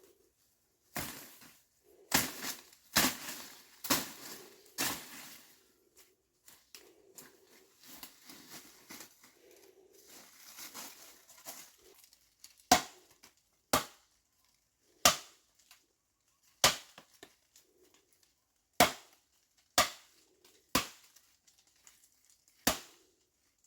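A series of sharp knocks, as of blows with a hand tool: a quick cluster of loud strikes in the first few seconds, a quieter stretch of rustling and scraping, then single blows about one to two seconds apart.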